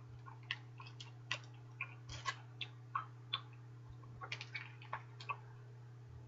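Mouthful of bubble gum being chewed, giving short wet smacking clicks at an irregular pace of about two a second, over a low steady hum.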